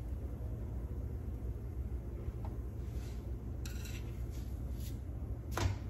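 Hands handling a gordita on a comal: a brief scrape a little past halfway and a light knock near the end, over a steady low hum.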